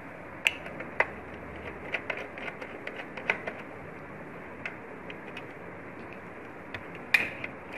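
Scattered small clicks and taps of a screwdriver and fingers working a fastener loose on a projector's circuit board, with the sharpest click about seven seconds in.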